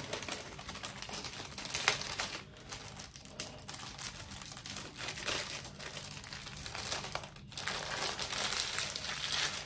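Clear plastic bags of diamond painting drills and plastic sheeting crinkling and rustling as they are handled, irregularly, with a few sharper crackles.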